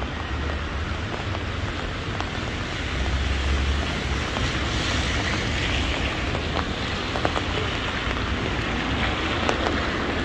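Heavy rain falling on a city street: a steady hiss with scattered sharp drop ticks, over a low rumble that swells about three to four seconds in.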